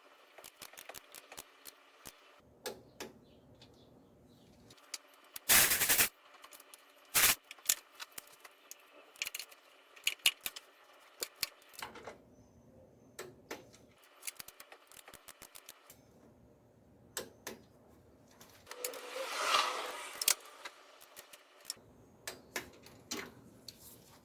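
Rapid, irregular clicking of a torque wrench on the timing-cover bolts, sped up in a time lapse. There are a few louder clatters of tools, the loudest about five and a half seconds in, and a short scraping rustle near twenty seconds.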